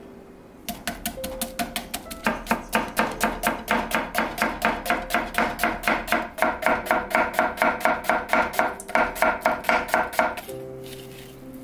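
Kitchen knife slicing an onion into thin strips on a wooden cutting board: a quick, even run of chops, about four or five a second. The chops start just under a second in and stop near the end.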